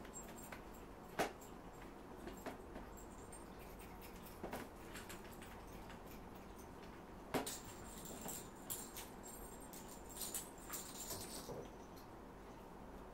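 Faint scattered taps, knocks and rustles of house cats playing with a toy dangled on a string, with two sharper knocks about a second in and about seven seconds in.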